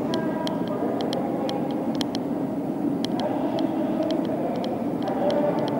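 Light, uneven clicking, about three ticks a second, from the handheld action camera and gimbal rig, over the steady hum of a railway station.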